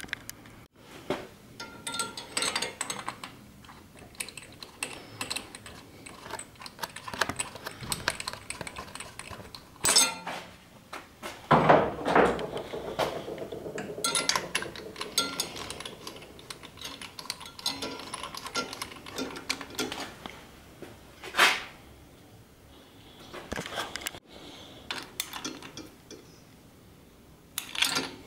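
Hand tools working on a motorcycle's engine: a socket ratchet clicking in short runs, and metal tools and parts clinking and knocking. There is one louder ringing metallic clank about twelve seconds in.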